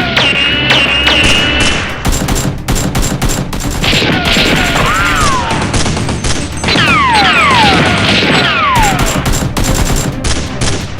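Rapid bursts of gunfire sound effects, many sharp shots in quick runs, over background music with repeated falling tones.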